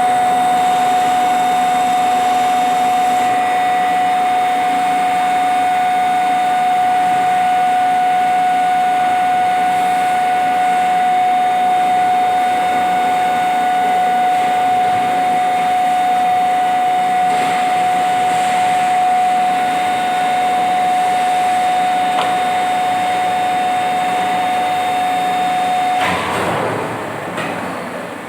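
Plastic injection moulding machine running with a loud steady noise and a constant high whine. The whine cuts off about 26 seconds in, followed by a short noisy burst.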